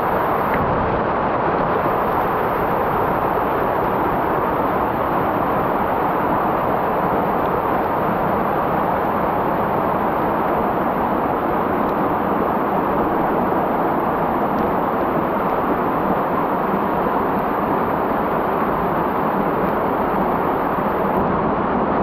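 Stream water pouring over a small rocky waterfall and splashing onto the rocks below, a loud, steady rush heard close up.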